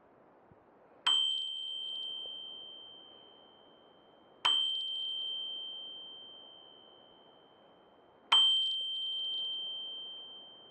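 Bicycle bell struck three times, a few seconds apart; each strike gives one clear high ring that sustains and slowly dies away over about three seconds.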